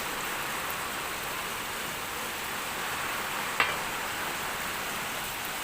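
Chicken feet with onion, garlic, ginger and chili sizzling steadily in a pan, with one sharp click about three and a half seconds in.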